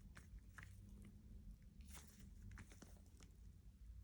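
Faint squishing and crackling of Model Magic clay being kneaded by hand with lotion, in a few soft, irregular squelches over a low background hum.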